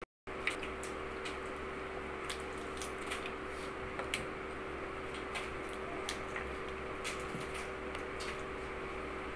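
Cooked alimasag (blue swimming crab) shells being cracked and picked apart by hand: scattered small crunches and clicks over a steady background hum.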